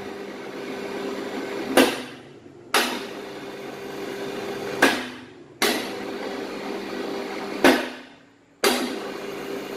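Stronger 2200 W high-speed electric construction winch run in short bursts from its pendant control, about four times: each run starts with a clunk, hums steadily for about two seconds, and ends with another clunk as the motor stops and winds down.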